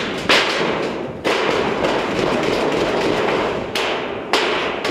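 Footsteps on corrugated metal roof sheeting: about four heavy thuds, each followed by the sheet rattling for up to a second.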